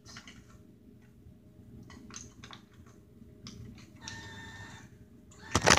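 Vending machine bill acceptor taking in a dollar bill: a few light clicks, then its motor whines steadily for about a second and a half as it draws the bill in. A sharp, loud knock comes near the end.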